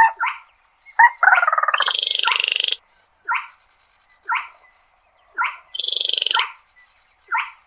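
Baillon's crake calling: short, sharp single notes about once a second, broken by two long, dry, buzzy rattles of a second or more each.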